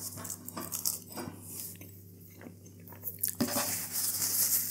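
A person chewing and crunching a mouthful of pastry bake close to the microphone, with small scattered bites and clicks. Then a louder rustling hiss starts about three and a half seconds in, as a paper napkin is wiped across the mouth.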